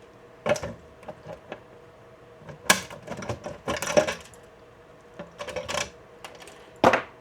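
Irregular sharp clicks, snaps and short scrapes of plastic support material being picked and broken off a 3D-printed dash mount.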